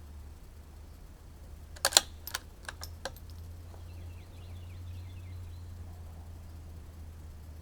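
Bolt of a CZ 457 .22 LR rifle being worked between shots: a quick run of five or six sharp metallic clicks about two seconds in, the first one loudest, over a steady low hum.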